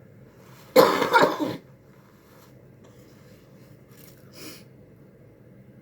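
A single loud burp, just under a second long, about a second in, after a drink of carbonated cherry Coke. A faint breathy sound follows about four and a half seconds in.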